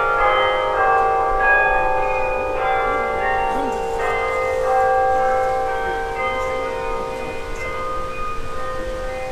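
Bok Tower's carillon playing: many tower bells are struck one after another, and their notes overlap and ring on.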